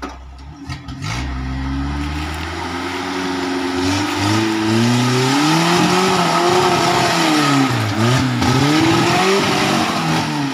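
Off-road jeep's engine revving under load as it climbs a steep dirt track, its pitch rising and falling with the throttle. It grows louder as the vehicle comes closer.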